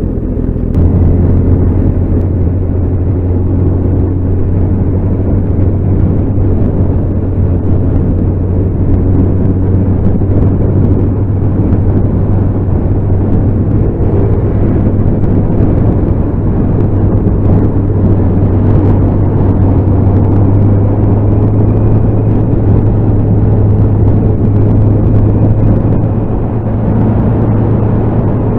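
Motorcycle engine running at a steady cruise while riding, a loud, even engine note. The engine note comes up about a second in.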